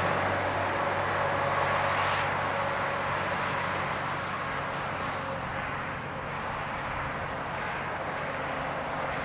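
Road traffic passing close by: steady engine and tyre noise from a car and a diesel concrete mixer truck, slowly easing off.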